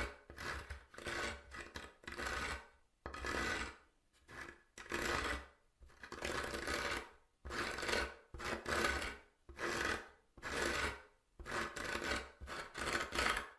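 Fingernails scratching across wood in a long series of irregular strokes, each lasting from a fraction of a second to about a second, with short gaps between them; the scratching stops abruptly near the end.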